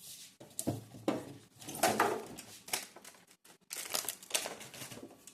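Plastic food packaging being handled, crinkling and rustling in uneven bursts with a few light knocks.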